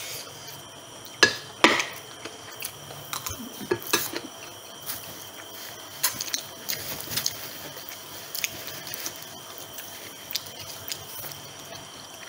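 Close-miked eating sounds: chewing and biting into fried chicken with rice, with scattered sharp clicks of a spoon against a bowl. The loudest two clicks come about a second in.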